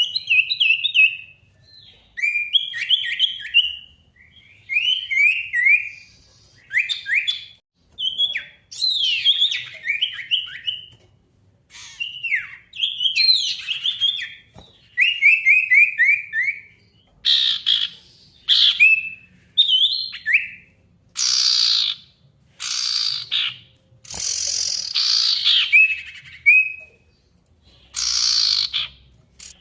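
Male sirtu songbird singing a challenge song, meant to call out rivals: short bursts of quick falling chirps repeated every second or two, turning harsher and louder in the second half.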